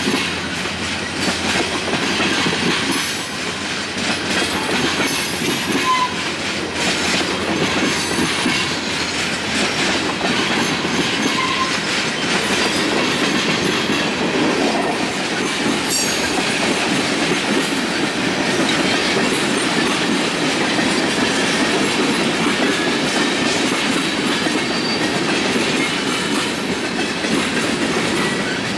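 Freight train of tank cars rolling past, a steady rumble of steel wheels on rail with clicking as the wheels cross the rail joints.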